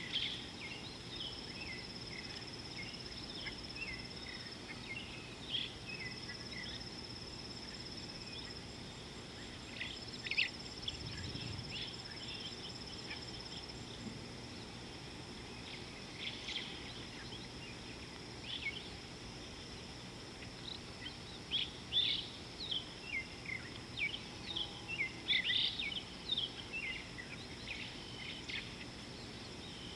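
Bush soundscape: many short bird chirps and whistles over a steady high insect buzz. The chirping grows busier and louder in the second half.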